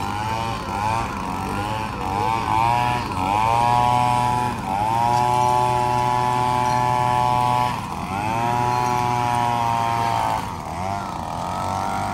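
Gas-powered handheld leaf blower revving up and down as it blows crash debris off the road. It is held at high throttle for a few seconds in the middle, then drops, rises again and falls back near the end.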